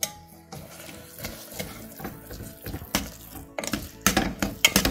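Steel ladle clinking and scraping against a metal cooker pot while mashing soft-cooked chana dal into puran as it dries on the heat. The clinks are irregular and come faster and louder in the last second and a half.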